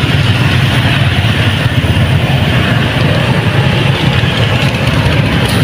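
Steady road traffic noise with motorbike engines running close by, a continuous low engine rumble with no pauses.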